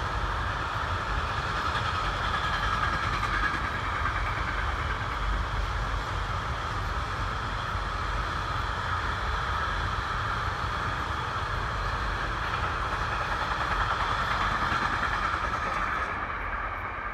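Freight wagons loaded with semi-trailers rolling past on the rails: a steady wheel-on-rail rumble and hiss that fades near the end as the last wagon goes by.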